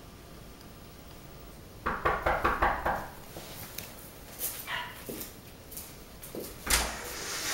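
A boy in a fit making frantic, animal-like yelping cries in a quick run, then a single falling whine. A sharp knock sounds near the end.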